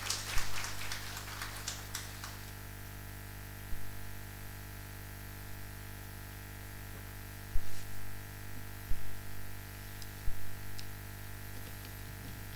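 Audience applauding for about two seconds, then dying away; after that a quiet hall with a steady low electrical hum and several dull thumps.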